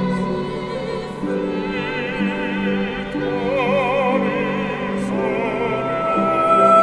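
Live classical chamber music: a melody line of held notes with vibrato over steadier low accompanying notes.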